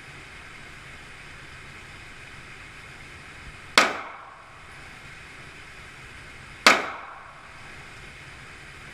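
Two 9mm Glock pistol shots about three seconds apart, each followed by a short echoing tail.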